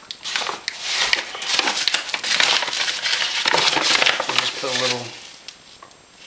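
Flour bags rustling and crinkling as they are handled and tipped, with flour shaken out of them, in irregular bursts that die away about five seconds in.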